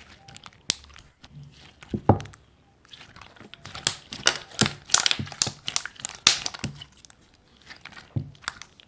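Slime being squeezed and pressed by hand, making irregular sticky clicks and pops that come thickest in the middle.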